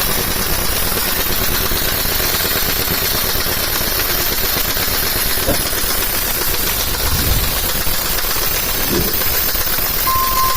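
Engine idling steadily with a loud, even mechanical noise. A short beep sounds just before the end.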